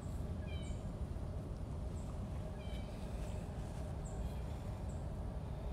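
Faint short high-pitched animal calls, about half a dozen spread a second or so apart, over a low steady outdoor rumble.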